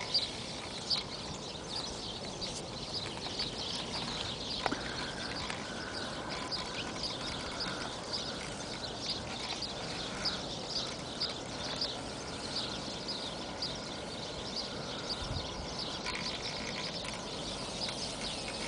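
Outdoor ambience dominated by rapid, high-pitched chirping from animals in the surroundings, repeated several times a second without a break; one sharp click sounds about five seconds in.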